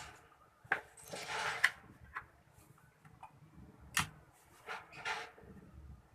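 Workbench handling noise: a few sharp clicks and short scrapes as small electronic parts and multimeter probes are picked up and moved.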